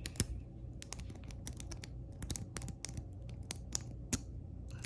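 Metal pick rake scrubbed in and out of a laminated Master Lock padlock's keyway, with the pins clicking irregularly several times a second.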